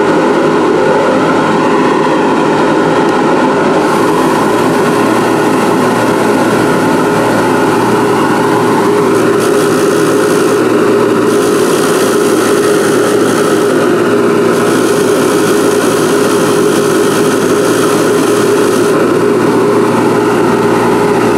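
Bench grinder with a wire wheel running at speed, a steady loud hum. From about four seconds in, a small knurled steel part of a rusty T-handle tap wrench is held against the spinning wire wheel, adding a hissing scratch of wire-brushing that breaks off briefly a few times as the part is turned.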